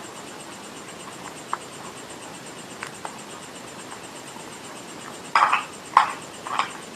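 Dry clay crunching as it is bitten and chewed: a few faint clicks, then four short, louder crunches in the last two seconds.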